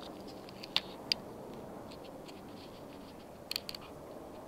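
Scattered small sharp clicks and faint ticks over a steady low room hum: two distinct clicks about a second in, then a quick run of three or four near the end.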